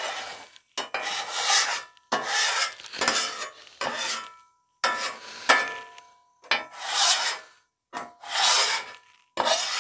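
Metal bench scraper scraping across a seasoned griddle top in repeated strokes, about one a second, working stuck-on food debris toward the grease trap.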